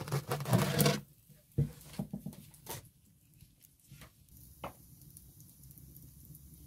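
Wooden bread peel scraping on the floor of a wood-fired oven as a flatbread is slid off it: a busy scratching for about a second, then a few faint separate knocks.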